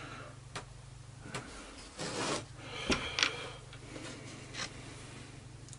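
Light clicks, knocks and a short scrape of wooden parts and nails being handled and lined up on a workbench, with the sharpest clicks about three seconds in, over a low steady hum.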